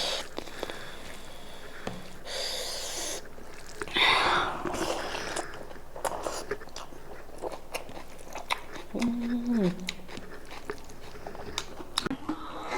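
Close-miked mouth sounds of eating goat meat with raw onion and chili: chewing and biting with many wet clicks and some crunching, and two louder breathy bursts early on.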